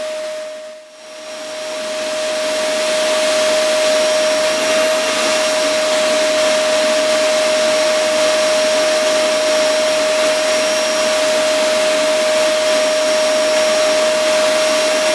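Vacuum cleaner running steadily: a rushing of air with a constant whine. The sound dips away briefly about a second in, then comes back.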